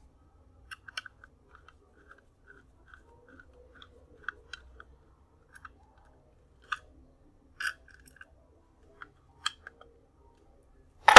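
Small screws being driven by hand to fasten a Raspberry Pi 5 board into its small case: a sparse run of faint clicks and ticks, with a louder burst of handling noise near the end.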